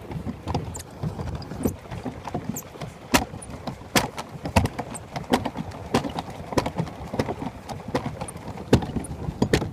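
Pedal boat being pedalled: its pedal-driven paddle wheel turning with a steady rumble of churning water and sharp knocks that settle into an even beat of about three every two seconds.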